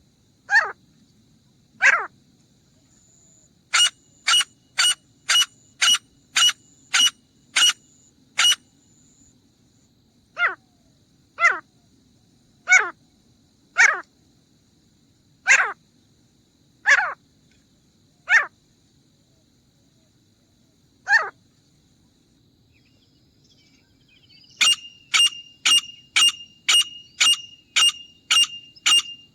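Grey francolin calling loudly in sharp, repeated notes. Quick runs of about two calls a second alternate with slower single calls spaced a second or more apart.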